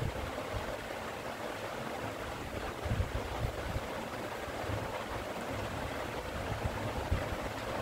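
Steady rushing background noise, with a few soft low thumps scattered through it.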